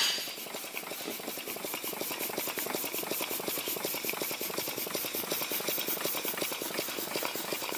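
Home-machined two-cylinder steam engine running, a rapid, even beat of exhaust puffs and mechanical clicks.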